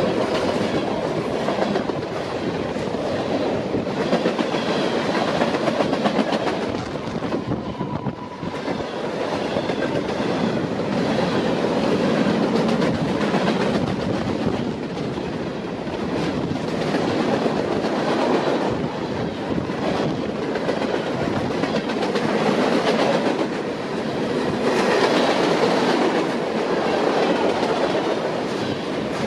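Freight train of tank cars, covered hoppers and boxcars rolling past close by: steel wheels clicking over rail joints amid the steady rumble and rattle of the cars.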